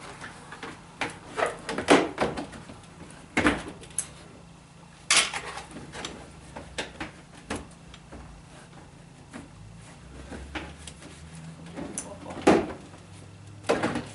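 Irregular clicks and knocks from parts and tools being handled during work on a car's fog light wiring and panels, with a few sharper knocks about two seconds in, around five seconds, and twice near the end.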